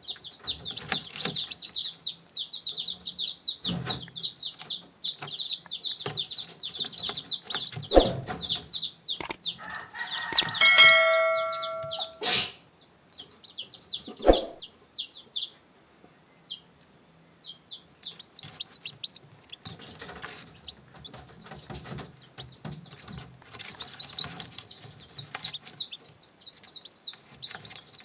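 Newly hatched chicks peeping inside an egg incubator: a dense, rapid stream of high-pitched peeps for about the first twelve seconds, thinning to scattered peeps after that. About eleven seconds in a short ringing chime-like tone sounds, and a few sharp knocks stand out, the loudest around eight and fourteen seconds in.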